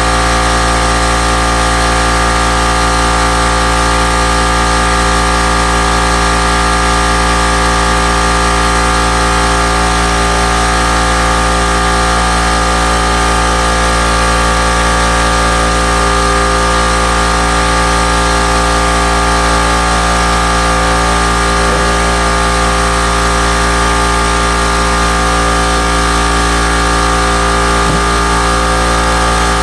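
Air compressor motor running with a loud, constant drone and hum, supplying air to a paint spray gun.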